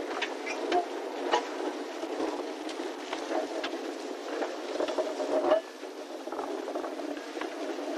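Sugar-cane lori wagons of a field train rolling past, a steady rolling rattle with scattered sharp knocks and clanks.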